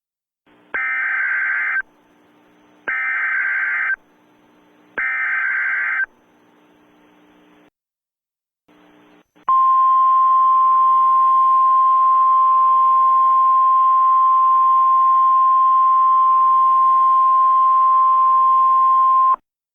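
Emergency Alert System broadcast signal: three one-second bursts of warbling digital header data about a second apart, then a single steady attention tone held for about ten seconds that cuts off suddenly.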